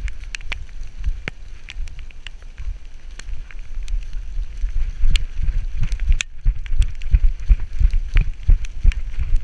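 Labrador retriever running over dry fallen leaves, heard through a GoPro strapped to its back: heavy bumps from the harness-mounted camera with each stride and crackling leaves underfoot. It gets louder about five seconds in, with a brief gap just after.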